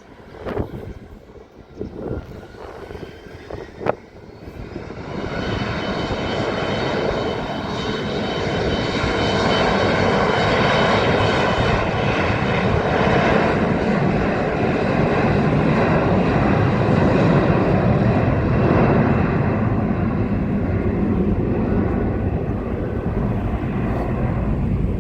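Airliner engines close by: a few light knocks at first, then from about four seconds in a loud rumble with a high whine over it swells up and holds steady as the aircraft passes.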